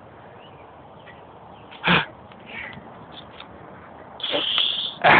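A toddler's short squeals of delight while swinging: a sharp one about two seconds in, then a longer, higher squeal near the end, with another short burst right after it.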